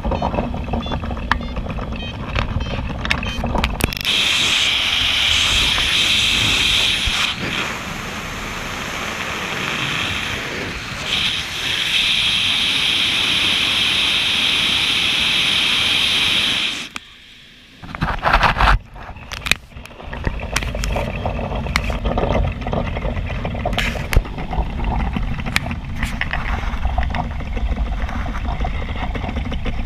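Wind rushing past the cockpit of a Cumulus motorglider and buffeting the camera microphone, with a higher hiss over it for much of the first half. The sound dips briefly a little past halfway, then returns as crackly buffeting.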